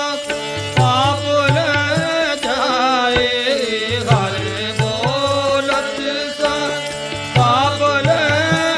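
Sikh kirtan: a harmonium and tabla accompany a sung melody with sliding ornaments, with the tabla's deep bass strokes recurring underneath.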